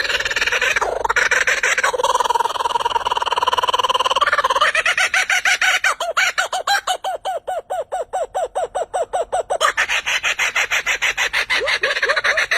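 Domestic fowl calling: rapid runs of short repeated calls, with one long drawn-out call about two seconds in and a fast string of clipped calls in the middle.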